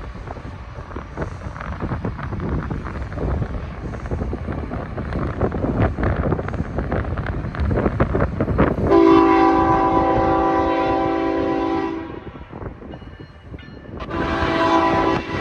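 BNSF freight locomotive's multi-chime air horn sounding a long blast of several notes at once, a break of about two seconds, then a second blast near the end, over the low rumble and clicking of the approaching train.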